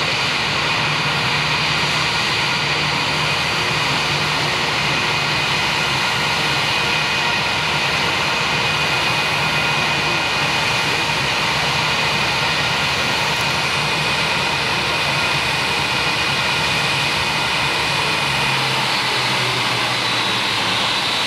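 The twin IAE V2500 jet engines of an Airbus A319-132 run at taxi power with a steady loud rush, a low hum and steady high whining tones. Near the end one whine stops, the hum drops lower and another whine falls in pitch as the engines wind down with the aircraft coming to a halt.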